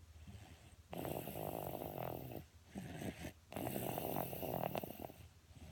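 Snoring: two long snores, the first about a second in and the second after a short pause, each lasting about a second and a half.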